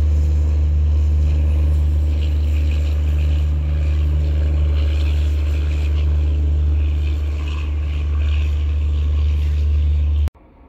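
Motorcycle engine running steadily with wind rumbling on the microphone as it rides. Loud and steady, cutting off abruptly near the end.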